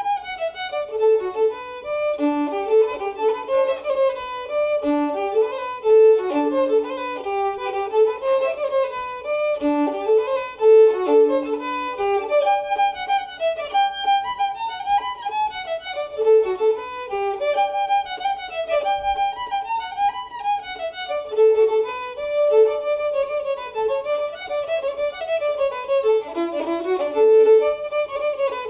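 Solo fiddle playing a traditional dance tune, bowed, in a continuous run of quick notes.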